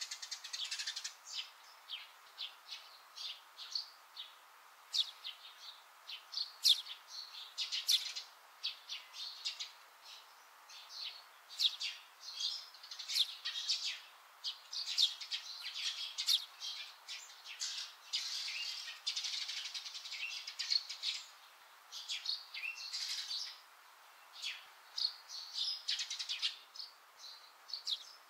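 Small birds chirping: a steady stream of short, high chirps in irregular clusters, with brief lulls between them.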